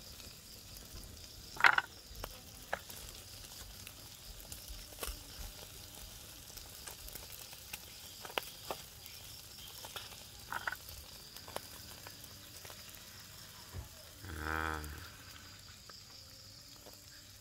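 Two patin catfish sizzling in a wire grill basket over hot charcoal, with scattered crackles and pops. A steady high thin drone runs underneath, and a short low pitched call sounds once near the end.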